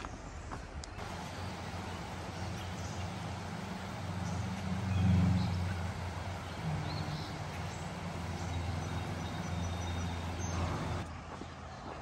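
Steady rush of river water running under a bridge, with a low engine rumble of a passing vehicle that swells to its loudest about five seconds in.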